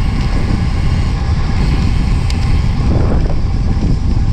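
Wind noise buffeting the camera microphone while a time-trial bike is ridden at about 30 km/h: a steady, loud low rush.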